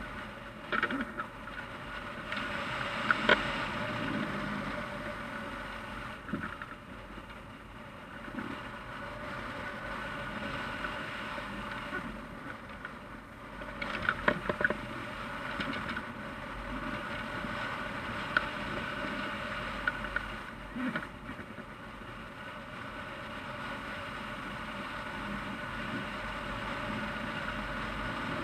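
Airflow rushing over a hang glider in flight, heard as steady wind noise on a camera mounted on the wing, with a few short sharp clicks or rattles, the loudest about three seconds in and around fourteen to fifteen seconds in.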